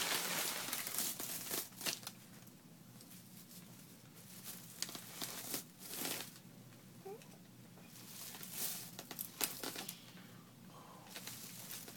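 Paper gift bag and its tissue paper crinkling and rustling as a child's hands rummage and pull at it, in irregular bursts that are densest in the first two seconds.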